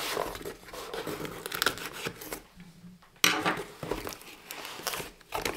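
Small cardboard shipping box being handled and its flaps pulled open, with rustling and scraping of cardboard. There is a brief lull near the middle, then the noise starts again suddenly.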